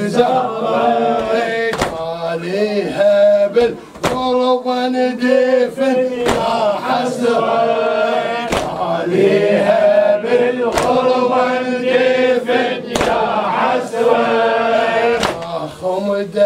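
A male reciter chanting a mournful Shia latmiya lament over a microphone, punctuated by the congregation's hand-on-chest strikes in unison, a slow beat of about one stroke every two seconds.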